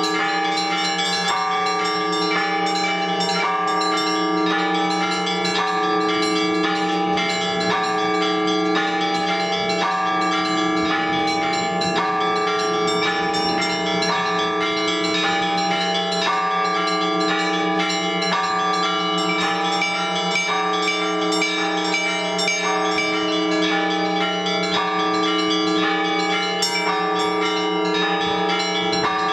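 Orthodox church bells rung by a bell-ringer for the all-night vigil: several bells of different pitches struck in a steady repeating pattern, about once a second, over the lasting low hum of a larger bell.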